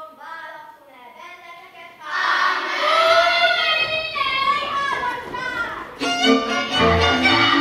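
Children singing faintly, then from about two seconds in a folk fiddle plays a dance tune alone with sliding notes. About six seconds in, accompanying strings and a bass join with a steady beat.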